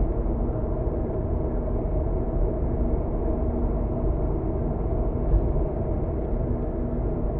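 Steady road and engine noise of a car cruising on an expressway, heard from inside the cabin: a low rumble with a faint steady hum.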